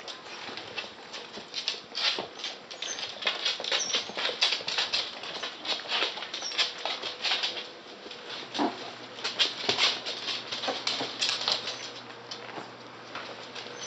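Westie puppies' claws clicking and pattering on a wooden floor as they scamper and play, in quick irregular clusters of taps.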